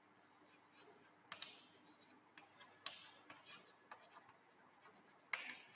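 Chalk writing on a blackboard: faint, irregular taps and short scratches of the chalk strokes, with a louder stroke near the end.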